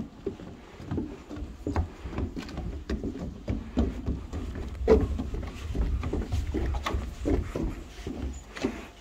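Footsteps on a wooden boardwalk: shoes knocking on the planks in an irregular walking rhythm, over a low rumble on the microphone.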